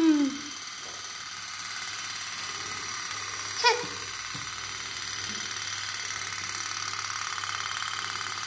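Tin pop-pop (putt-putt) toy boat running in a tub of water, its little steam engine giving a steady, rapid putt-putt. A child makes one short high vocal squeak about three and a half seconds in.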